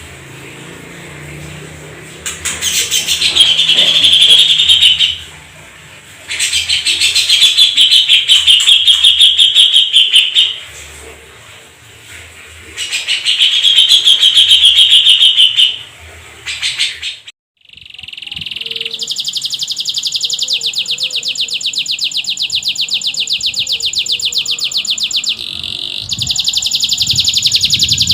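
Canary singing in rapid rolling trills: three trills of a few seconds each with short gaps, then after a brief break one long unbroken trill.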